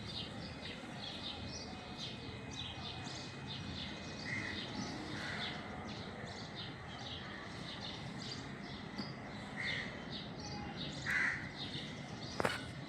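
Birds chirping, many short, quick chirps one after another, with a few louder notes now and then and a single sharp click near the end.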